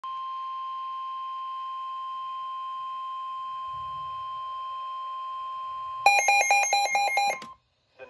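NOAA Weather Radio's 1050 Hz warning alarm tone, a steady high tone for about six seconds, signalling that a warning is about to be broadcast. Then the weather radio receiver's own alarm beeps loudly and rapidly, about six beeps a second, over the tone for a second and a half before both cut off.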